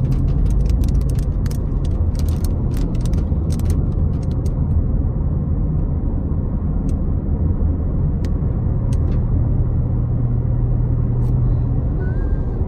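Steady engine and road rumble inside a moving car's cabin, with big raindrops ticking on the windshield and roof, many at first and thinning to a few scattered ticks after about four seconds.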